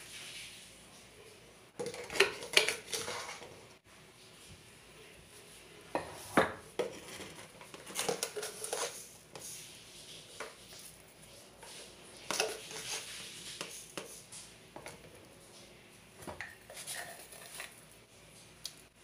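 A metal spoon clinking and scraping against containers in five short bursts a few seconds apart, as ground spices are spooned onto a plastic tub of mashed potato filling.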